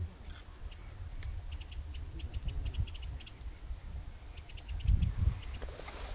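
Teal drakes calling with short, high whistled notes, given in quick clusters of a few at a time. Underneath is a low wind rumble on the microphone, with a loud gust about five seconds in.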